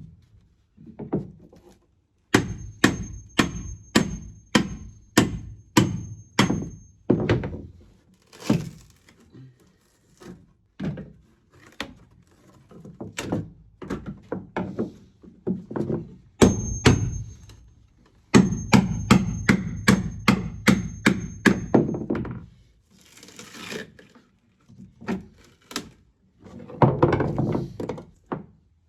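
Repeated heavy thunking blows, about two a second in runs with short pauses, knocking out rotten balsa coring and fiberglass from a boat hull.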